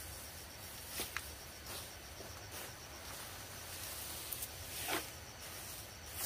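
Insects chirping steadily in the background, with a few short rustles and snaps of ferns and weeds being torn up and cut, twice about a second in and loudest about five seconds in.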